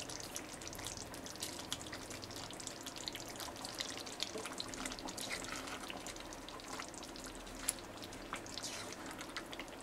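Chicken pieces in a yoghurt gravy simmering in an oily pan, a faint steady sizzle dotted with many small crackles and pops, as a spatula stirs through it.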